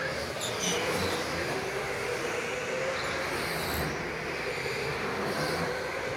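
Electric go-kart running on an indoor track: a steady motor whine that drifts up and down in pitch with speed, over rolling tyre noise.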